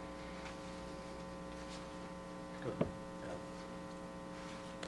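Steady electrical mains hum from the sound system, held at one pitch over faint room noise, with one brief faint sound a little over halfway through.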